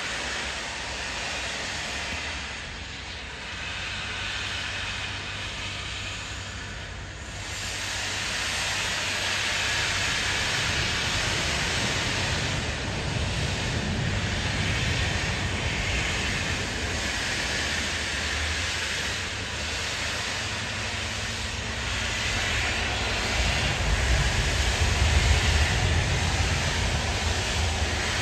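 Steam locomotive 35028 'Clan Line', a three-cylinder rebuilt Merchant Navy Pacific, moving off slowly with steam hissing and pulsing every second or two and a low rumble that grows louder near the end.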